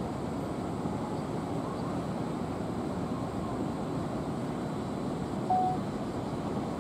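Steady hum of city street traffic, with no single vehicle standing out. About five and a half seconds in, a brief high single-pitched beep sounds once.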